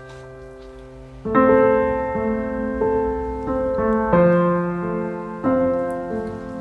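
Soft background piano music: a quiet held chord, then from about a second in a run of louder, slow chords.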